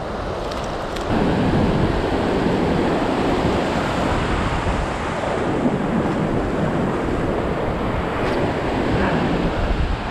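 Ocean surf breaking and washing up a sandy beach, with wind buffeting the microphone. It gets louder about a second in and then runs on steadily.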